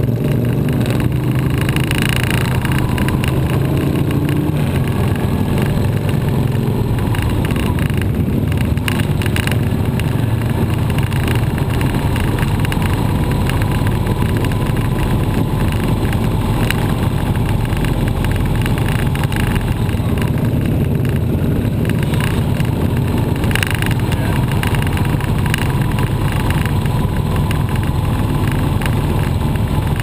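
Motorcycle engine running steadily under way, heard from a camera mounted on the bike, with wind noise over the microphone.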